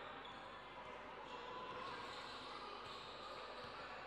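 Basketball game sounds on a court: the ball bouncing, with short high squeaks over a steady background hubbub.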